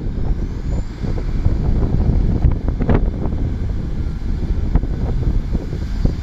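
Class 150 Sprinter diesel multiple unit moving along the platform past the listener: a steady low diesel rumble and wheel noise, with a few sharp clicks in the middle.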